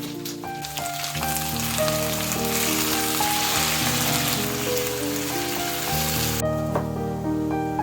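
Food sizzling as it fries in a hot pan, an even hiss that cuts off suddenly about six and a half seconds in, over piano background music.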